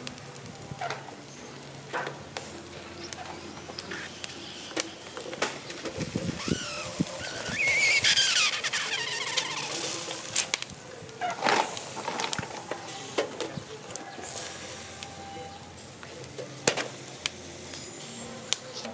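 Snails grilling in their shells over charcoal: scattered crackles and clicks from the coals and the shells as they are turned by hand, with a wavering high squeal in the middle.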